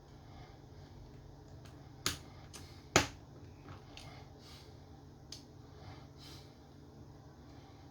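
Two sharp clicks, about a second apart with the second the louder, then a few faint ticks and taps, as small parts of a Nintendo Switch Joy-Con controller are pressed down into place.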